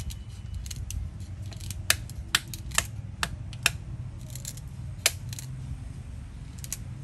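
Wooden stick knocking on an oyster nut (kulekula) held against a clay pot to crack its hard shell: a run of five sharp knocks about half a second apart, then one more a little later. Fainter small clicks and scrapes of nuts being handled and peeled go on around them.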